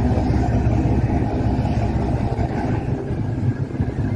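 Steady low engine rumble from a passenger fast ferry's diesel engines as it moves across the harbour.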